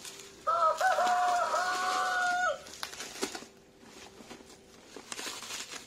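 A rooster crowing once: a single call of about two seconds that wavers at the start, then holds level and stops. Afterwards the bubble wrap and plastic mailer crinkle in short bursts as they are handled.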